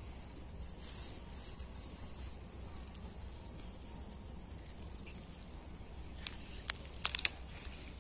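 Quiet pondside ambience with a steady high insect buzz, and a short run of small splashes and clicks near the end as hands work in a bamboo basket of branches set in the water.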